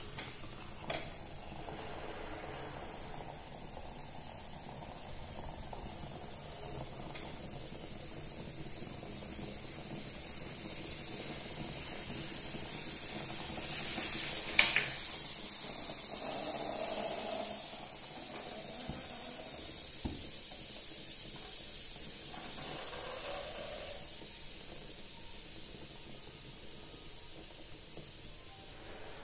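Aluminium moka pot brewing on a gas burner: a steady hiss as the coffee is pushed up into the upper chamber, with the burner's gas flame beneath. A single sharp click about halfway through.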